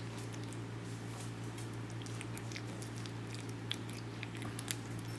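Cat chewing a piece of raw pork: scattered, irregular small clicks and crunches of its teeth working the meat, over a steady low hum.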